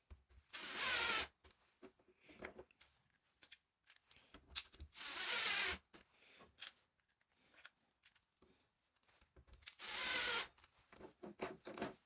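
Bosch cordless drill/driver driving screws through a caster wheel's mounting plate into a wooden panel: three runs of about a second each, the motor's pitch dropping as each screw tightens, with small clicks and handling noises between them.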